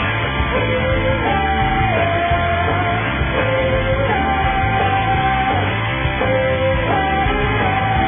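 Rock music, an instrumental passage led by guitar: a melody of long held notes stepping up and down over a steady band backing.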